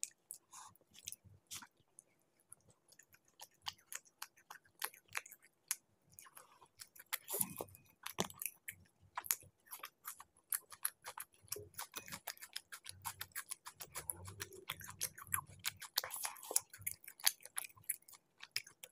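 Close-miked chewing and mouth smacking as chicken masala curry and laccha paratha are eaten by hand, with many short clicks.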